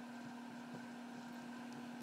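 Steady low electrical-sounding hum with a faint hiss, and a couple of very faint light clicks.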